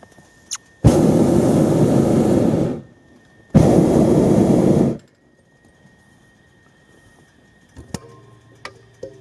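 Hot air balloon's propane burner firing twice: a blast of about two seconds, then after a short gap a second blast of about a second and a half.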